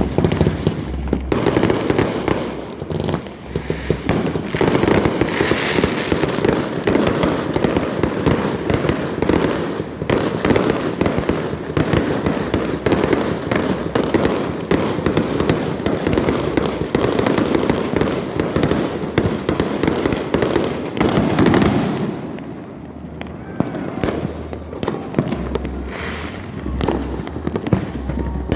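Fireworks going off in a dense barrage of bangs and crackling for about twenty seconds, thinning to scattered separate pops near the end.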